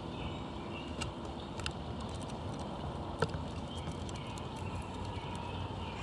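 Steady low outdoor rumble with a few sharp clicks at a window bird feeder where a male northern cardinal is perched; the loudest click comes a little over three seconds in.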